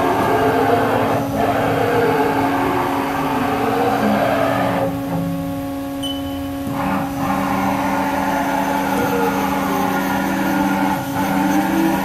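Haas VF-2YT vertical machining center moving its table on the axis servo motors and ball screws: a machine whine that rises and falls in pitch as each move speeds up and slows down, over a steady hum. There is a quieter pause about five seconds in.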